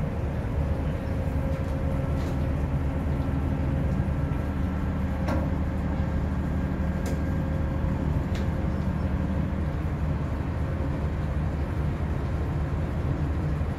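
Ship's engine running steadily: an even, low drone of several deep tones, with a few faint clicks.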